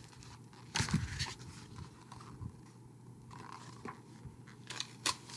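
Pages of a picture book being turned and the book handled: a few short rustles and knocks about a second in and again near the end.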